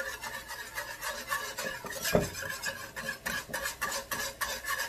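Wire whisk beating a thick butter sauce in a frying pan: quick, rhythmic scraping and clicking of the wires against the pan, several strokes a second.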